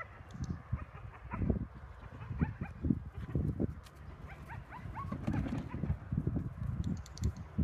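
A dog giving short rising yips again and again as it runs an agility course, over repeated dull thumps of feet running on grass.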